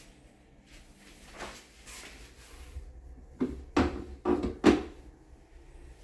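Hard plastic toilet seat being lifted on a film-covered seat unit: a soft rustle of handling, then four sharp plastic knocks in about a second and a half as the seat is raised and clacks against the unit behind it.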